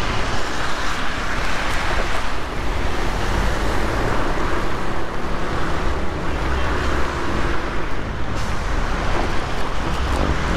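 Motorcycle on the move on a wet street: a steady rush of wind and road noise over the low running of the engine, with tyre spray from the water on the road.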